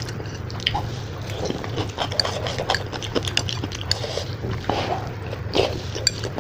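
Close-up eating sounds of spicy Maggi instant noodles: wet chewing and slurping in many quick, irregular clicks and smacks, over a steady low hum.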